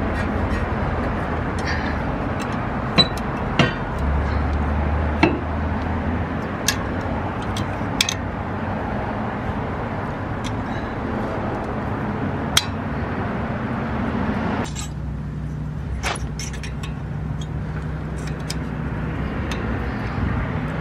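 Scattered light metallic clicks and clinks as thin metal pad-hardware clips are pressed into a brake caliper bracket by hand, over a steady background hum.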